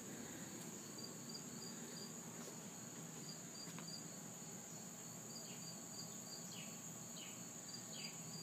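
Insects trilling outdoors in a steady, high-pitched chorus. About halfway through, a run of short falling chirps joins in, repeating a little under twice a second.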